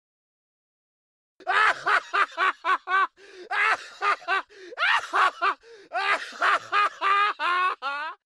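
A person laughing, high-pitched, in quick rhythmic 'ha-ha' pulses: three bouts with short breaks between, starting about a second and a half in.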